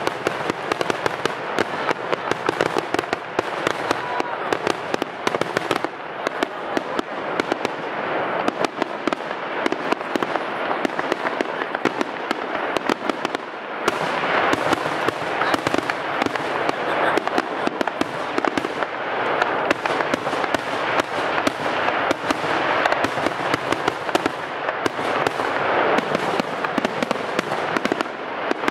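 Aerial fireworks display: a dense, unbroken barrage of shell bursts and crackling, with many pops overlapping each other. It eases briefly and then grows louder about halfway through.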